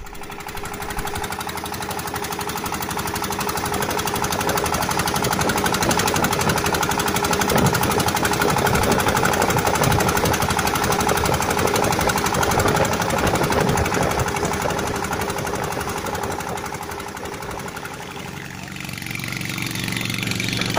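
A small wooden fishing boat's engine running steadily under way, with a fast, even knocking beat. It gives way near the end to a quieter, lower hum.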